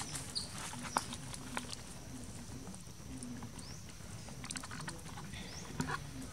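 A few short, high chirps rising in pitch, from a small animal, with scattered light taps and a faint steady low hum.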